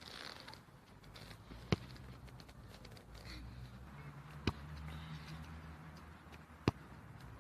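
A football struck three times, sharp single thumps two to three seconds apart, over a faint low rumble.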